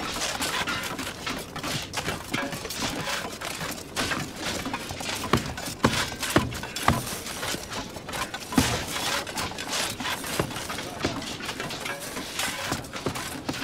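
A busy clatter of hard objects knocking and clinking, with a few louder sharp cracks near the middle.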